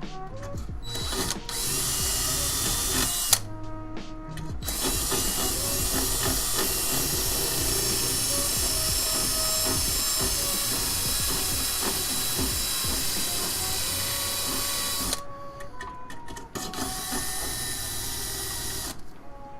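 Cordless drill boring into a PC case: a short run about a second and a half in, then a long continuous run of about ten seconds, then a lighter run near the end.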